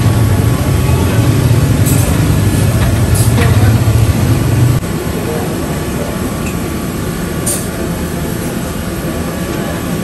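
Samosas frying in a large karahi of hot oil: a steady sizzle. Under it runs a low rumbling hum that cuts off abruptly about five seconds in.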